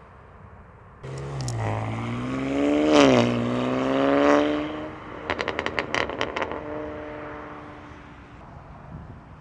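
BMW G80 M3's S58 twin-turbo inline-six through a titanium equal-length X-pipe catback with catless downpipes, accelerating hard: the revs climb, drop with an upshift, then climb again. On lifting off, the exhaust gives a quick run of sharp pops and crackles, then settles to a steadier tone that fades away.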